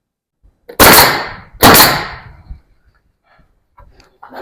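Two loud, sharp nailing impacts under a second apart, each ringing on briefly: nails being driven to fasten wooden wall boards.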